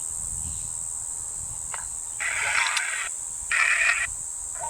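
Spirit box sweeping through radio frequencies: a steady high-pitched whine under a hiss, with short bursts of radio static chopping in twice, about halfway through and again near the end.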